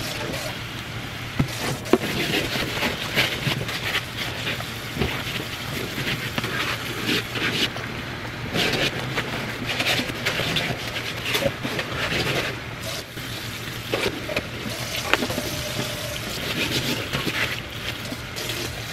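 Water running and splashing as a makeup bag is washed and set to soak, with many irregular splashes and knocks from handling.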